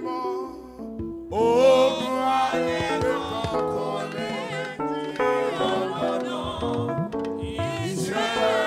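A man singing a worship song into a microphone, with a wavering, held voice, over sustained instrumental backing; the singing comes in about a second in.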